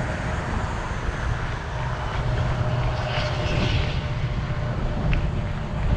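Steady low rumble of motor traffic on a city street, with a brief rise in hiss partway through as a vehicle passes.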